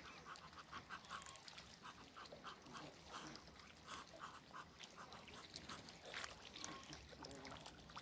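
Muscovy ducks calling faintly: a run of short, soft notes, about three a second, thinning out after about five seconds.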